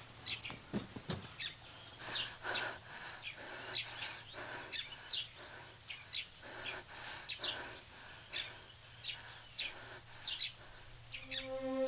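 Small birds chirping outdoors, short high calls repeating about twice a second. Soft music comes in near the end.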